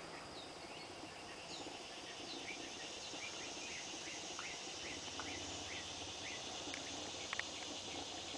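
Outdoor summer ambience: a steady high drone of insects with a run of short, quick bird chirps through the middle, and two sharp clicks near the end.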